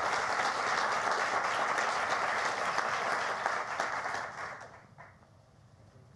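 Audience applauding: dense clapping from a seated crowd that fades out about four to five seconds in.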